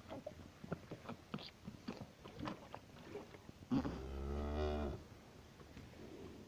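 A newborn calf sucking on a bottle's rubber nipple, with quick wet smacking clicks, then a cow moos once, a low call lasting about a second.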